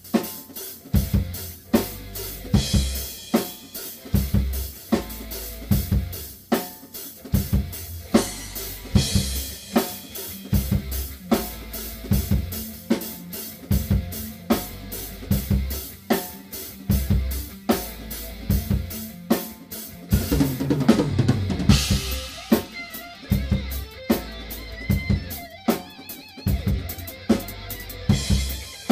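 Rock drum kit played in a steady beat: bass drum, snare and Sabian cymbals. Cymbal crashes come in several times, and there is a louder, busier passage about twenty seconds in that ends on a cymbal crash.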